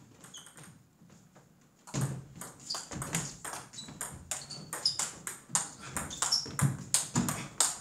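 Table tennis rally: the ball clicking off the bats and bouncing on the table in quick alternation, a few hits a second. It starts about two seconds in.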